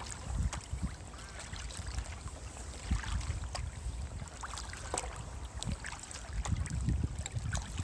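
Kayak paddle strokes through calm canal water: paddle blades dipping and pulling, with drips and small splashes scattered throughout. Wind buffets the microphone underneath.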